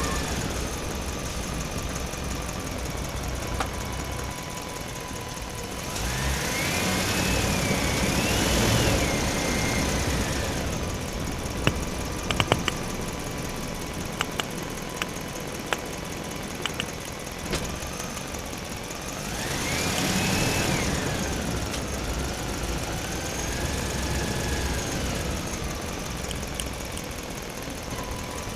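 Heavy vehicle engine running, with a whine that rises and falls in pitch twice as it works, and a few sharp clicks near the middle.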